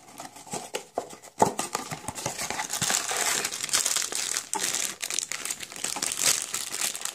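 Crinkling of the sealed plastic bag holding a blind-box toy as it is handled and opened with scissors, with one sharp click about a second and a half in, then continuous crackling.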